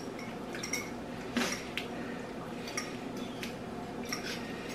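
Metal forks clinking and scraping against bowls while twirling noodles: about half a dozen light, irregular clinks.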